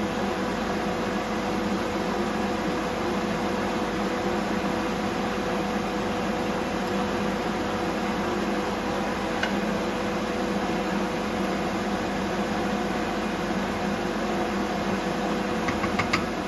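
A steady mechanical hum, fan-like, with a few steady tones in it. Near the end a wooden spoon knocks a few times against the stainless steel pan as the dish is stirred.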